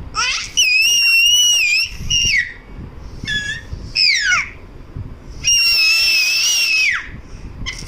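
Baby squealing in high-pitched shrieks: two long, held squeals of about a second and a half each, with shorter squeals between them that slide down in pitch.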